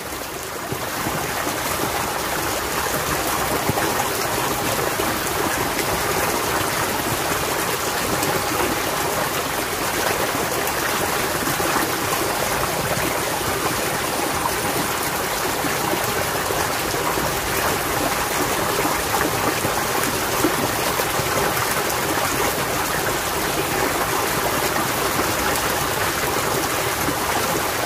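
Water flowing in a small irrigation ditch, a steady rushing that holds even throughout.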